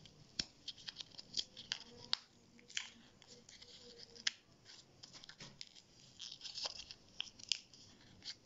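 Plastic blister pack of a CR2032 coin-cell battery being bent, crinkled and torn open by hand to push the battery out: a string of irregular sharp crackles and snaps.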